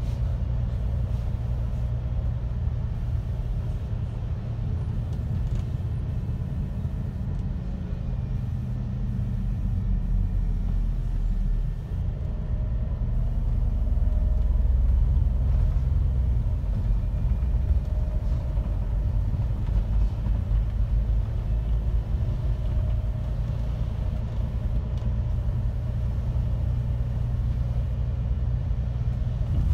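Inside a MAN Lion's City city bus on the move: a steady, deep engine and road rumble, swelling louder about halfway through, then settling back.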